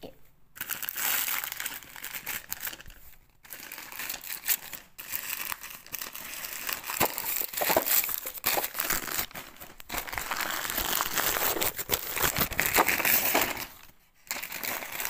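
Gift wrapping paper crinkling and crumpling as a present is torn open by hand, a dense run of crackles with brief pauses about three seconds in and near the end.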